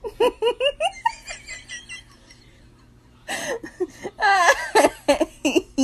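A person giggling in a quick run of short rising bursts, quieter for a couple of seconds, then laughing louder again.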